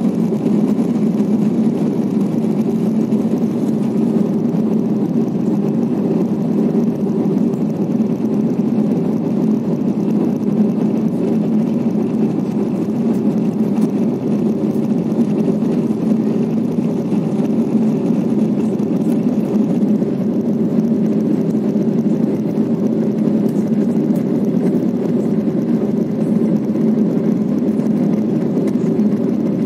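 Jet airliner cabin noise on approach: a steady, unchanging low drone of engines and rushing air.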